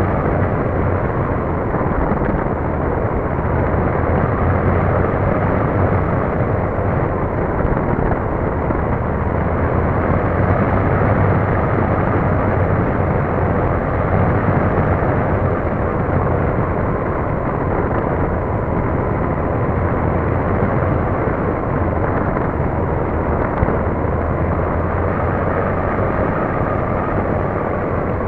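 Wind rushing over a keychain camera on the tail of a radio-controlled model plane, with the steady whine of its motor and propeller wavering slightly in pitch.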